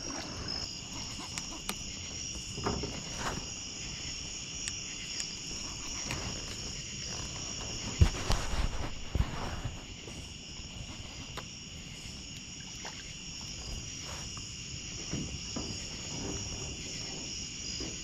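Night insect chorus of crickets: a steady, high-pitched trilling in two pitch bands. A few knocks and rustles break in, the sharpest a knock about eight seconds in.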